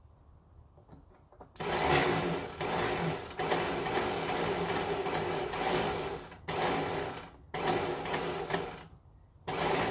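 The starter motor of a 1968 Datsun 1000 whirring in a string of bursts, each one to three seconds long with short breaks between, without engaging the engine. The owner suspects worn teeth on the flywheel ring gear.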